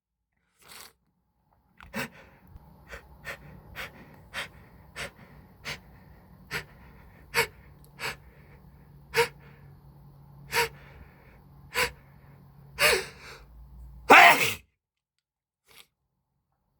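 Allergy sneeze build-up: a long run of short, sharp catching gasps, several a second at first and then further apart, ending in a loud sneeze near the end with a smaller burst just before it.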